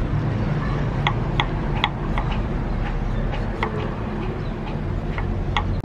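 Small knife slicing strips of rind off a hand-held pumpkin, each cut a short crisp click, several a second and irregular, beginning about a second in, over a steady low rumble.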